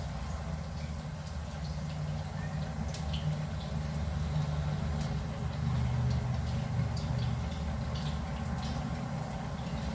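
Plantain slices frying in oil, with scattered small pops and crackles, over a steady low hum.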